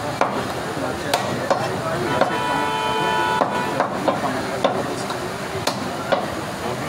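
A meat cleaver chopping goat meat and bone on a wooden log chopping block: about ten sharp chops at an uneven pace, over steady butcher-shop background noise. A held tone sounds for about a second in the middle.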